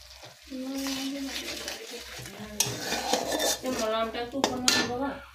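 A metal spatula scrapes and clanks against an iron kadai while thick spice masala is stirred and sautéed down, with a few sharp knocks near the end.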